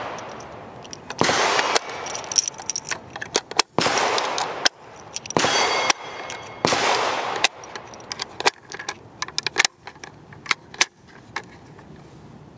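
Brass-cased 7.62x51 (M118LR) rifle cartridges being pushed one at a time into a Magpul PMAG 20 polymer magazine: four scraping slides of brass against the feed lips and plastic, each set off by sharp clicks as a round seats. After about seven seconds, a run of lighter separate clicks and taps as the magazine and rounds are handled.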